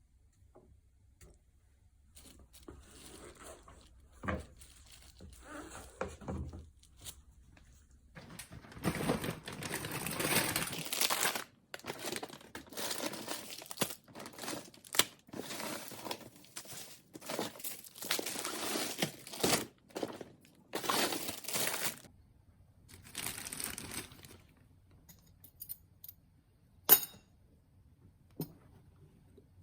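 Grocery packaging and bags crinkling and rustling in a run of irregular handling bursts, with a sharp click about 27 seconds in.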